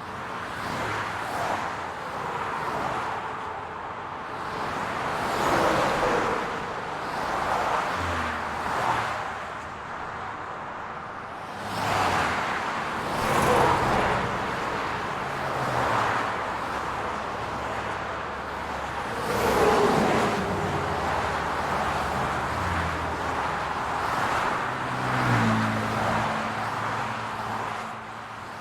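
Road traffic: cars passing one after another, each swelling up and fading away with its engine note dropping in pitch, over a steady hum of traffic.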